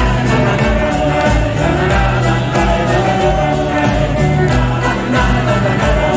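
Live rock band playing a steady beat, with several voices singing together.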